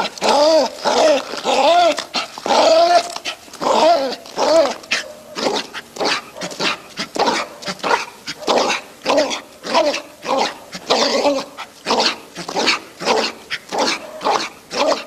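Dog barking excitedly: whining barks that rise and fall in pitch over the first few seconds, then a quick run of short barks, two or three a second.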